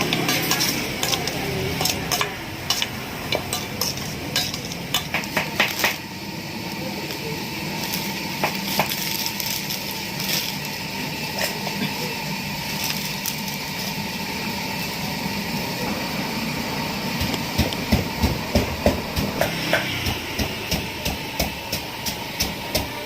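Pestle knocking in a mortar, with spoon and utensil clatter, as som tam is pounded and mixed. Near the end the knocks come quick and even, about two or three a second.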